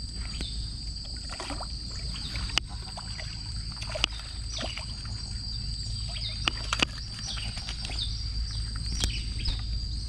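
Outdoor ambience: a steady rumble of wind on the microphone under a constant high insect drone, with scattered short falling bird chirps and a few sharp clicks.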